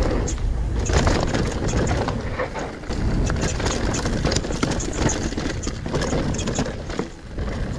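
Mountain bike riding down a rough trail: tyres rumbling over the ground, with a steady stream of small knocks and clatters as the bike goes over roots and rocks.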